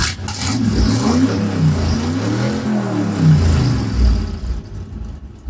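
Ford Ranger engine revved through a homemade straight exhaust (header into a 2.5-inch collector, then a straight 3-inch pipe). The revs rise and fall, and it eases off near the end.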